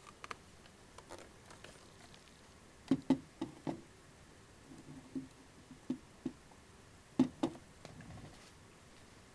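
Plastic alarm clock being handled: light, irregular clicks and knocks that come in a few small clusters, the sharpest about three seconds and seven seconds in.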